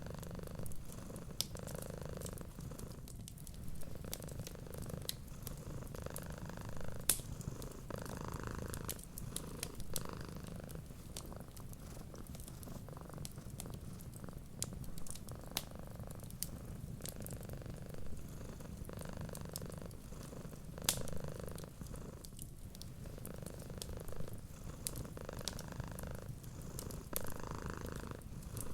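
Cat purring steadily, the purr swelling and fading with each breath about every two seconds, over the scattered sharp pops and crackles of a wood fire.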